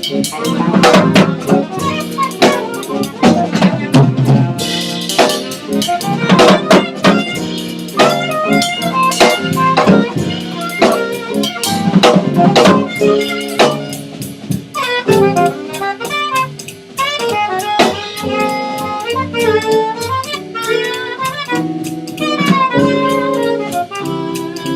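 Small jazz group playing live: a busy drum kit with many sharp strikes dominates the first half, then a saxophone carries the line with long held and bending notes from about fifteen seconds in.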